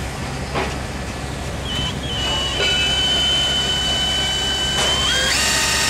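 Cordless drill running with its bit against a boat hull: a steady motor whine starts about two seconds in and rises in pitch near the end as the drill speeds up, over a steady low hum.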